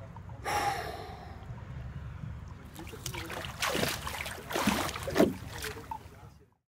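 A deep breath about half a second in, then water splashing and sloshing for a few seconds as a freediver ducks under the pool surface.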